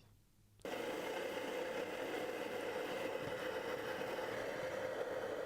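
Prototype diesel-fired foundry furnace running: a steady rushing noise of burner and blower with a faint hum in it, cutting in abruptly about half a second in.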